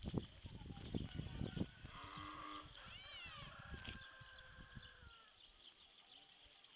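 Livestock calling: a short bleat about two seconds in, then a longer, level call that glides down at its end near five seconds. Low bumps on the microphone come in the first second or so.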